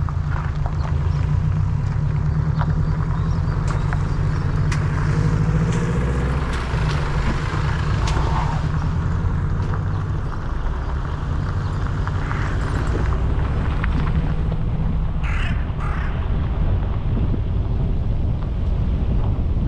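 Steady low rumble of a running vehicle, with scattered clicks and rattles and two short sharp sounds about three-quarters of the way through.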